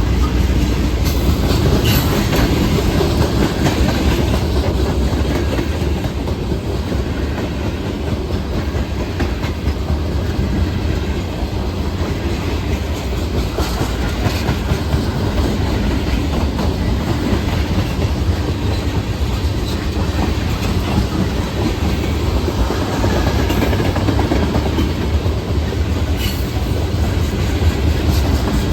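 Norfolk Southern freight train rolling past, a steady heavy rumble with wheels clicking over the rail joints.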